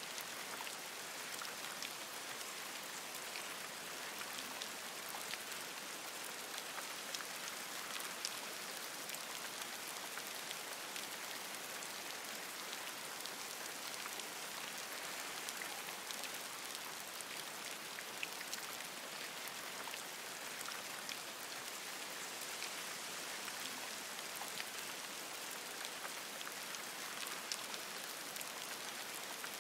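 Steady rain falling on forest leaves: an even hiss with many scattered sharper ticks of individual drops.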